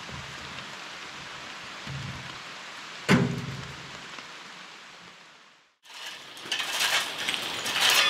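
A steady outdoor hiss with one sharp clank about three seconds in, then a fade to silence. From about six seconds, a shovel scrapes and clinks through broken concrete rubble in a dug-out patch of floor.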